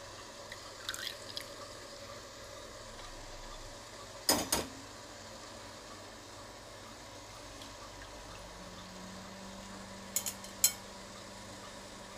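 Egg custard mixture pouring and dripping through a fine wire-mesh strainer into a metal pan. Two sharp knocks come about four seconds in and three quicker clinks near ten seconds as the strainer and utensils are handled.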